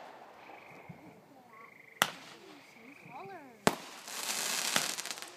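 Two aerial firework shells bursting with sharp bangs about a second and a half apart. The second is followed by about a second of dense crackling.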